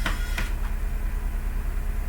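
Steady low electrical hum, with two sharp clicks close together near the start and a fainter third just after.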